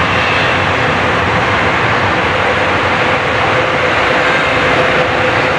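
Jabodebek LRT train running on the elevated concrete track: a steady rail rumble with a faint steady hum.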